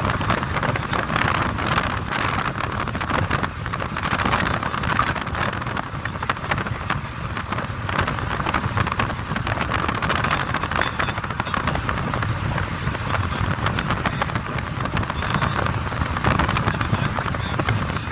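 Steady road and wind noise of a car driving along, heard from inside the cabin.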